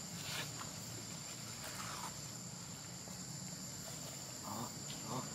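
A steady, high-pitched chorus of insects, with a few short, faint calls over it, about two seconds in and twice near the end.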